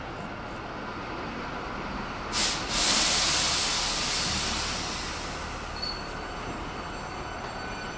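Hankyu 8300-series electric train standing at the platform: a short burst of air about two and a half seconds in, then a loud hiss that fades away over a few seconds, the air brakes releasing as the train readies to depart.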